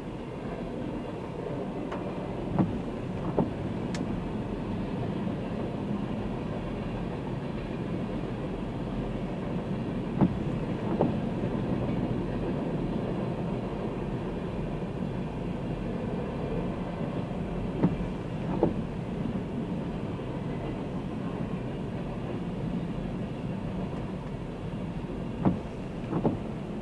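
Freight cars of a long Norfolk Southern train rolling past: a steady rumble of steel wheels on rail, broken four times by a pair of sharp clacks as a car's wheel sets strike a rail joint.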